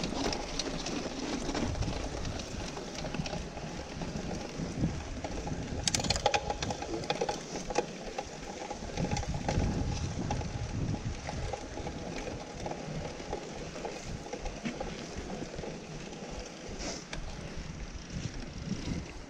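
Mountain bike rolling over a sandy, stony trail: steady tyre noise with small rattles and clicks from the bike, and a burst of sharp rattling about six seconds in as it goes over rough ground.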